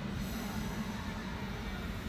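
Electric commuter train running, a steady running noise with no sudden events.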